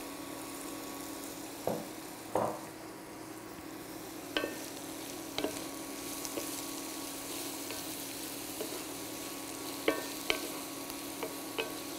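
Chopped bell peppers and onions sizzling in hot oil in a cast-iron skillet, stirred with a wooden spatula that knocks and scrapes against the pan every second or so.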